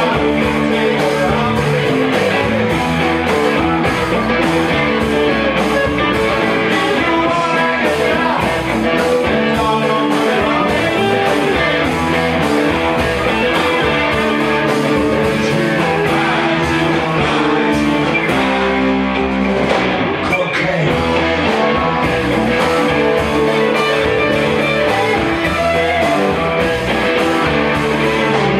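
Live rock band playing: several electric guitars over drums and keyboard, with a steady beat.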